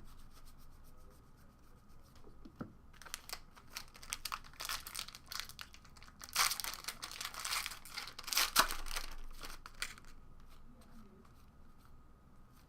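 Trading card pack wrapper torn open and crinkled, in scratchy, rustling bursts from about three seconds in until near ten seconds, loudest in the middle.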